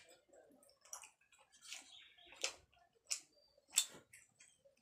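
Close-miked eating sounds of chewing grilled chicken: a run of short, wet clicks and smacks from the mouth, about one every three-quarters of a second, with soft chewing between.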